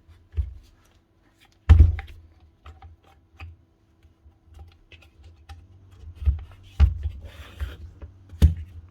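Handling noises from a plastic-cased power drill and tools on a workbench: scattered clicks and hard knocks, the loudest about two seconds in and two more near the end, with a brief rasping scrape just before the last knock.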